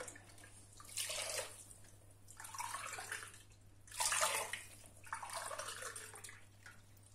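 Water poured from a plastic filter jug into a glass and tipped from the glass into a stainless steel pot of sugar, in several short pours one after another: three glasses of water being measured out for sugar syrup.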